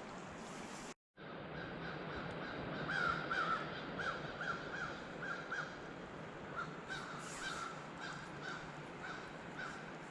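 Crows cawing: a run of short, harsh calls, thickest a few seconds in and then thinning out, over the steady rush of flowing water. The sound drops out completely for a moment about a second in.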